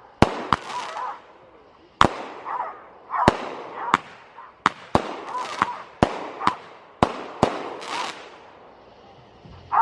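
A consumer aerial firework cake firing off a string of sharp bangs, about a dozen, irregularly spaced over roughly eight seconds, each with a short echo, then a brief lull near the end.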